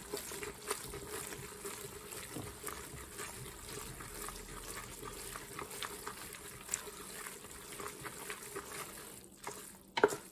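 Wooden spoon stirring pasta through tomato sauce and melted butter in a stainless steel pot: a steady wet stirring with small clicks and taps throughout, and a couple of sharper knocks near the end.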